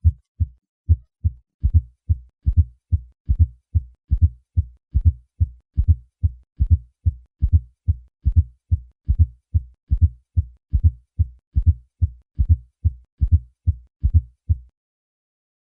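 Heart sounds heard through a stethoscope bell at the cardiac apex: a steady run of low-pitched lub-dub beats. The first few beats are normal, then a fourth heart sound (S4, atrial gallop) is added as a soft low thud just before each first heart sound. This is a sign of a stiff, poorly compliant left ventricle, as in hypertension. The beats stop near the end.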